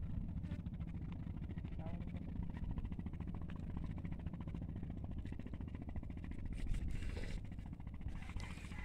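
Low, steady rumble of wind buffeting the microphone, with a few faint higher sounds about seven and eight and a half seconds in.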